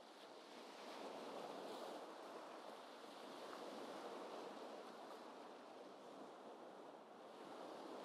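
Faint, gentle ocean waves washing in, an even hiss that swells a little about a second in and eases near the seventh second.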